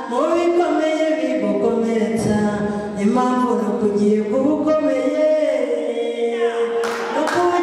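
Unaccompanied singing: long held notes that slide up and down in pitch, without instruments.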